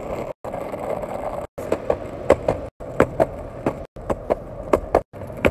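Penny board's small plastic wheels rolling over pavement with a steady rumble. After about a second and a half, sharp clacks come in quick pairs as front and back wheels cross cracks in the sidewalk. The sound drops out abruptly several times.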